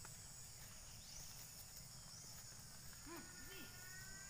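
Faint outdoor ambience: a steady high-pitched insect drone over a low rumble, with two short faint calls about three seconds in.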